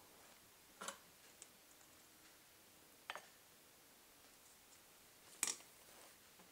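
Near silence broken by three light clicks, about two seconds apart, the last one the loudest.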